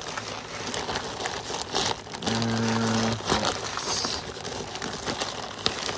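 Plastic mailer bag crinkling and rustling as a hand rummages inside it and handles it. About two seconds in, a low steady hum sounds for about a second.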